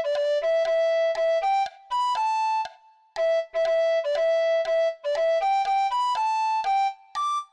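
Alto recorder playing a melody one tongued note at a time, with a short break about three seconds in.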